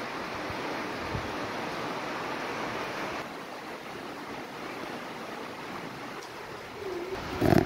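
Steady rushing background noise, like wind on the microphone, dropping a little in level about three seconds in. Right at the end, loud rasping strokes start as a vegetable is rubbed on a steel grater.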